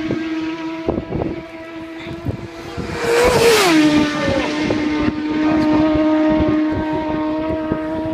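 Racing motorcycles at full speed on a road course. One bike passes about three seconds in, its engine note swelling and then dropping sharply in pitch as it goes by. Otherwise the steady, high engine note of bikes going away down the road carries on.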